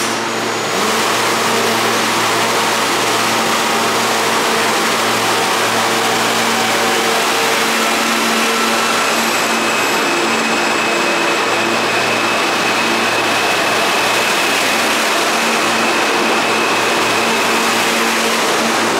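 R160 subway train pulling out of an underground station: the noise of its wheels and traction motors rises about a second in, then holds loud and steady. Several steady tones run through it, with a thin high tone from about halfway through to near the end.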